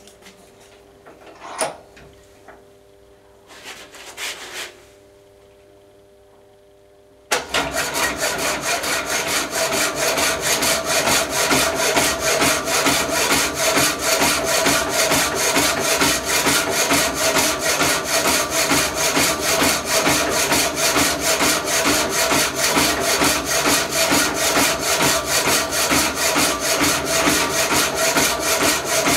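Power hacksaw starting about seven seconds in and then cutting steadily, its blade rasping back and forth in quick even strokes over a steady motor hum. Before it starts, a few short knocks as the work is set up at the machine.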